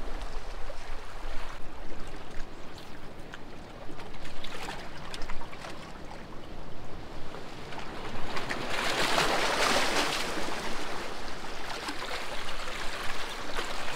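Waves washing and sloshing around rocks, a steady rush of water with a louder surge about nine seconds in.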